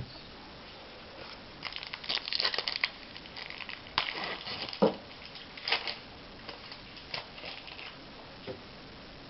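A trading card pack wrapper being torn open and crinkled, in a run of irregular crackling bursts, with a sharp snap about four seconds in.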